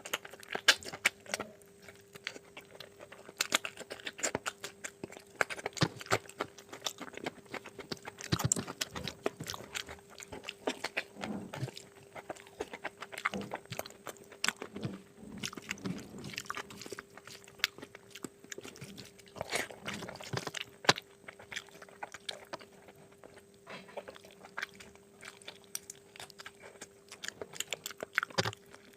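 Close-up chewing and biting of mutton curry with rice: a steady run of irregular mouth clicks and smacks, over a faint steady hum.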